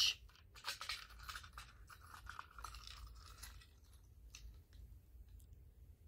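Faint scattered clicks, taps and light rattles of an Edwards fire alarm pull station being handled, with its key clicking in the lock; the clicks are a little louder around the first second.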